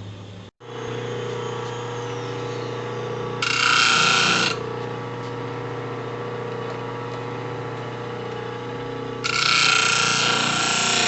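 Bench drill press driven by a treadmill motor, running with a steady hum. Twice a loud, harsh grinding noise cuts in over it: once for about a second, about three seconds in, and again from about nine seconds on.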